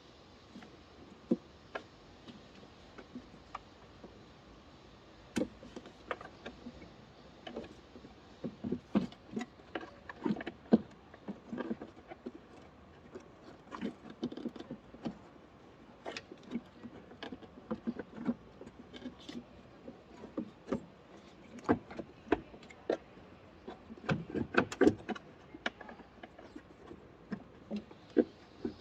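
Irregular clicks, clinks and knocks of hand tools and parts being handled during repair work. They are sparse at first, grow frequent after about eight seconds, and bunch together near the end.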